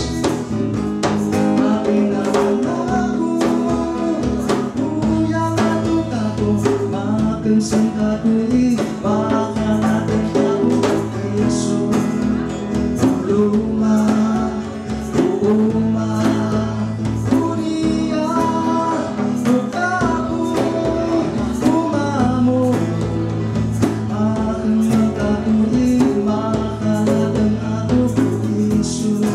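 Live acoustic band playing a song: acoustic guitar strummed with djembe hand-drum beats under men singing the melody.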